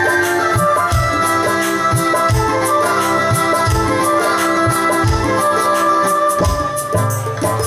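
A live band playing an instrumental passage: an electronic keyboard melody in long held notes over a steady drum beat, with regular high ticks keeping time.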